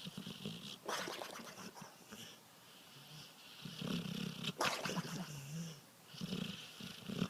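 A dog making repeated sounds in bouts about a second long with short pauses between, loudest about four to six seconds in.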